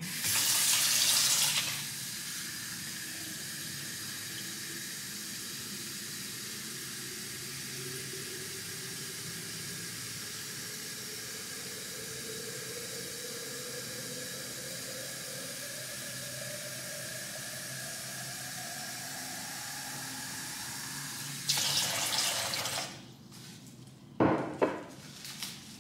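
Sink tap running water into a vase. It splashes loudly as it opens, then settles into a steady stream whose tone slowly rises as the vase fills. Near the end there is a louder rush, then a sharp thump.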